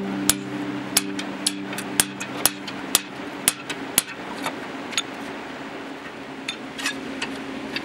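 Hand hammer striking a cold chisel against the edge of sheet steel, notching teeth cold: sharp metallic taps about twice a second, thinning out in the last few seconds.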